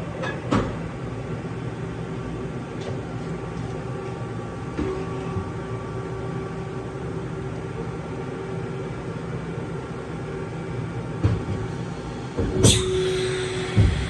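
Okuma MA50HB horizontal machining center running while its rotary table turns the tombstone fixture: a steady machine hum with a held whine through the middle, returning briefly near the end. Several clunks sound along the way, the loudest a sharp clack with a hiss near the end, followed by a knock.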